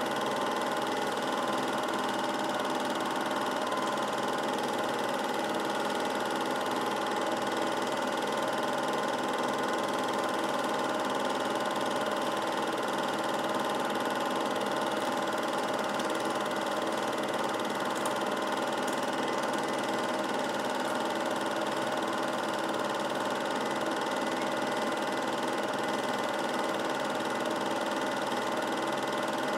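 Steady whirring mechanical hum of a running film projector, even and unbroken, with no change at the picture cuts.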